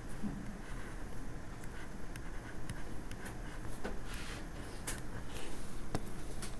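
Light clicks and taps of a stylus on a pen tablet as numbers are handwritten, scattered irregularly and mostly in the second half, over a steady low microphone hum.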